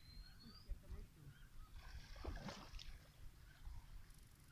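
Faint pond-side ambience: wind rumbling on the microphone, small birds chirping with a short rising whistle at the start, and a brief swish of water about two seconds in as a cast net is drawn through the shallows.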